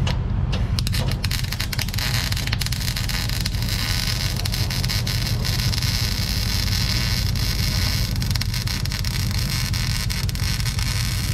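Electric arc welding on steel: after a couple of brief strikes near the start, the arc settles about a second in into a steady crackle and sizzle, over a steady low hum.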